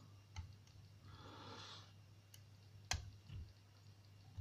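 Faint metallic clicks of a hook pick lifting pin tumblers in a Kwikset lock cylinder held under tension by a wrench: a few separate clicks, the sharpest about three seconds in, as the first pin sets at the shear line.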